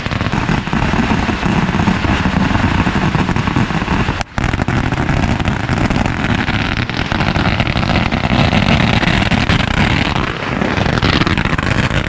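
Long strings of firecrackers going off in a dense, continuous rapid crackle, with a brief break about four seconds in.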